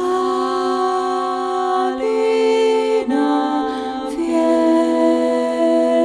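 Slow, calm background music: long held notes that shift to a new pitch every second or two.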